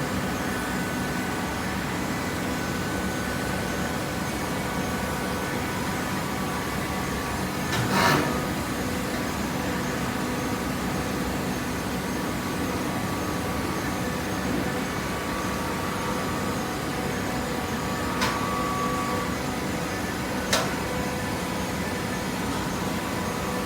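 Hydraulic baler for corrugated cardboard running with a steady machine hum. A brief, loud rushing noise comes about eight seconds in, and two sharp clicks follow later.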